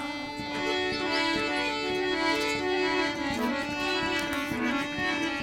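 Instrumental folk devotional music: a reedy melody of held notes over a steady drone, with drum strokes throughout.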